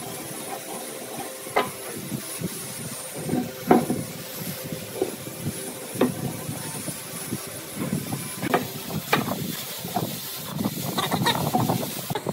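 Wooden mortise gauge and pine workpiece being handled on a wooden workbench: a handful of sharp wooden taps and knocks at irregular moments over a steady hiss.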